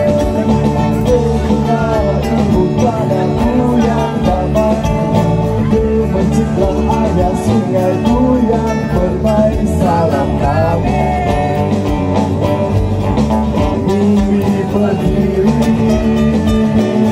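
Live acoustic band music: several acoustic guitars playing together, with a lead voice singing a wavering melody over them.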